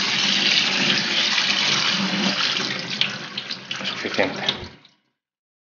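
Cold tap water pouring onto cooked pasta in a stainless steel colander in the sink, rinsing it to stop the cooking. The flow tails off after about two seconds, a few light knocks follow, and the sound cuts off suddenly near the end.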